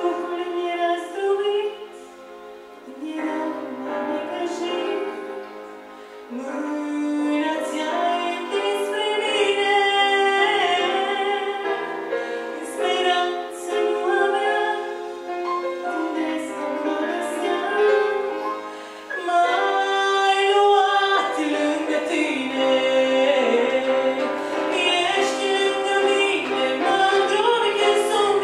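A woman singing a Romanian song into a handheld microphone over musical accompaniment, her voice growing fuller and louder in the last third.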